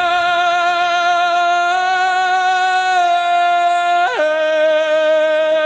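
A single long held sung note with steady vibrato, no beat under it, that slides down to a lower note about four seconds in and holds there as the track's closing note.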